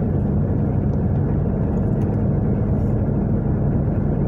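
Steady road and engine rumble inside a moving car's cabin, even and unbroken.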